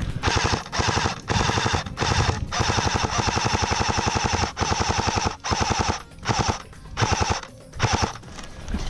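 Airsoft electric rifle firing on full auto: about ten rapid bursts with short gaps between them, the longest lasting about two seconds, each with the whine of the motor and gearbox over the rattle.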